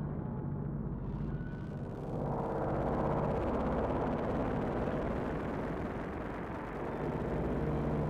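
Low rumbling drone of an ambient stage score, with held low tones, swelling and thickening about two seconds in.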